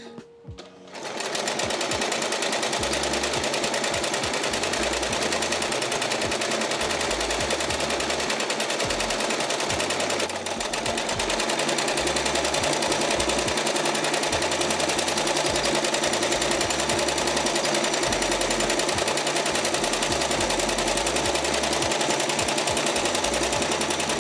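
Small home sewing machine stitching steadily at speed while free-motion quilting with a darning foot. It starts up about a second in and eases for a moment about ten seconds in.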